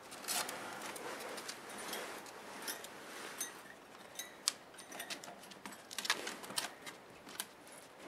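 Pet striped skunk's claws clicking and scratching on its cage shelf and ramp as it walks down, a run of irregular sharp clicks over a soft rustle.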